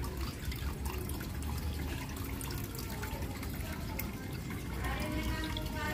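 Steady trickle of running water with small drips and splashes.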